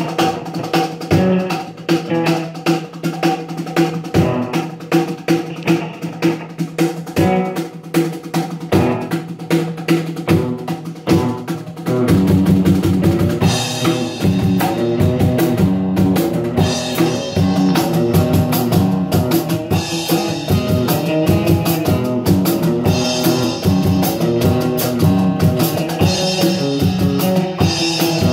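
A small band jamming on guitars over drumming. It is sparse at first, then gets louder and fuller about twelve seconds in.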